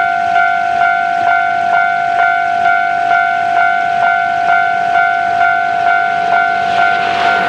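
Japanese railway level-crossing alarm ringing its repeated two-tone clang, a little more than two strikes a second, warning of an approaching train. A rushing noise builds near the end.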